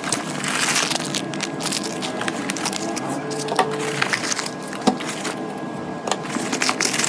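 Packaging and kit items being handled: a steady crinkling rustle broken by small clicks and knocks.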